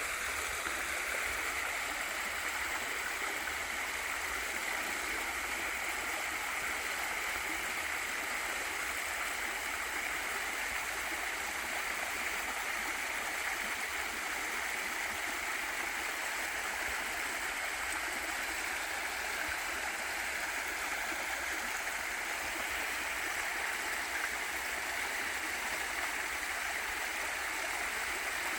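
Waterfall in a mountain valley stream: water falling and running in a steady, even rush, strongest in the middle-to-high range, with no changes or separate splashes.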